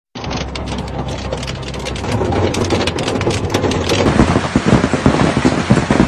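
Large hailstones pelting a vehicle's roof and windscreen, heard from inside the cabin: a dense, rapid clatter of hits that grows louder, with single heavy strikes standing out in the second half.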